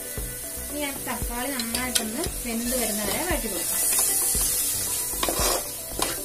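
Wooden spatula stirring and scraping sliced tomatoes and onion masala around an aluminium pot, with the oil sizzling steadily underneath and a few knocks of the spatula against the pot.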